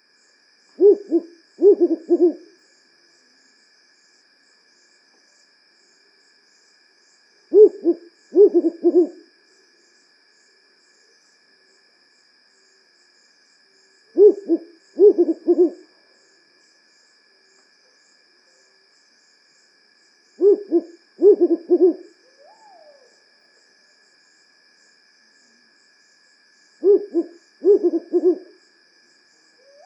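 African wood owl (Strix woodfordii) hooting, with the species' repeated WHU-hu, WHU-hu-hu phrase given five times, about every six and a half seconds. A fainter, softer sliding call follows the fourth phrase and comes again at the very end.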